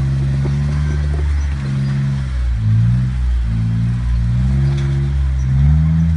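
Jeep Wrangler engine running under load, its revs rising and falling repeatedly as it crawls.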